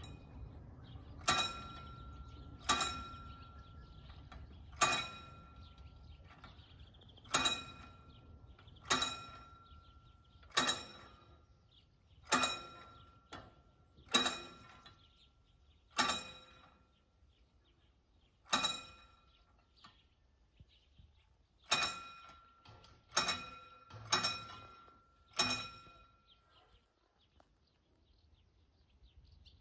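Level-crossing warning bell striking single, separate strokes, each ringing out, about one every one and a half to two seconds. It stops near the end after some fourteen strokes. It signals that the crossing barriers are coming down.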